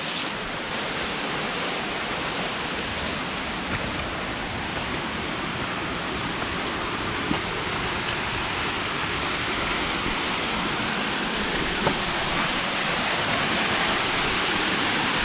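Waterfall pouring steadily, a dense, even rushing of water that grows a little louder toward the end.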